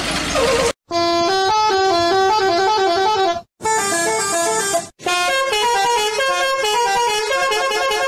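Indonesian bus musical multi-tone horn (a 'telolet' horn) playing quick tunes, note after note. It is broken into three phrases by sudden cuts, after a brief burst of noise at the start.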